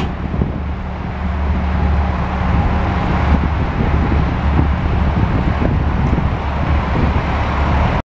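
Wacker Neuson 8003 excavator's diesel engine running under hydraulic load as the boom and bucket move: a loud, steady, deep drone.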